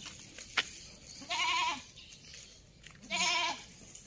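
Goats bleating: two wavering bleats about half a second each, the second about a second and a half after the first.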